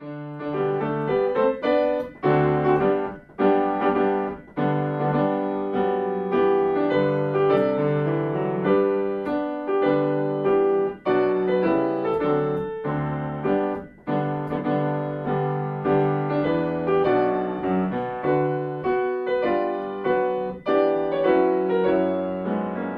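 Piano music: a melody of struck notes over held bass notes.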